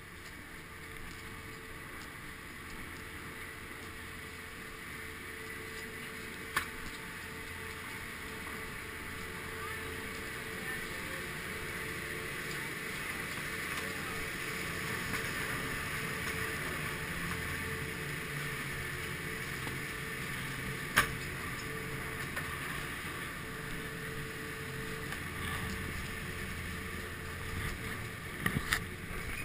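Chairlift terminal machinery running with a steady hum, broken by two sharp clicks partway through and a few knocks near the end as the chair is boarded with the ski bike.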